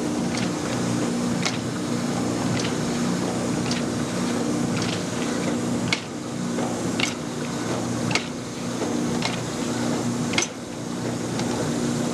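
Automatic PET bottle washing, filling and capping machine running: a steady mechanical hum with a sharp clack about once a second as the machine cycles.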